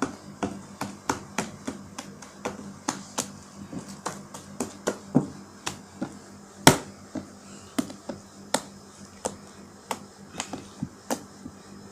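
Soft slime being flicked and slapped about by hand like roti dough, giving an irregular string of short sharp smacks and pops, about two a second, with one louder smack a little past halfway.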